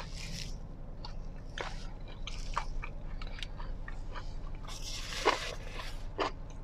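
Paper and plastic wrappings crinkling and rustling as a wrapped chicken shawarma is handled, in scattered crackles with a denser burst and one sharper crackle about five seconds in.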